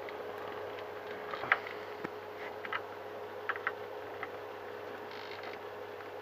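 Scattered light clicks and taps of small model parts and tools being handled on a workbench, over a steady low hum, with a brief faint whine about five seconds in.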